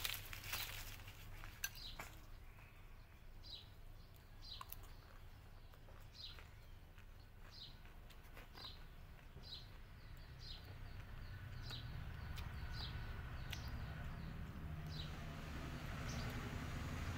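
A bird chirping over and over, short falling chirps about once a second. A low rumble builds up in the last few seconds.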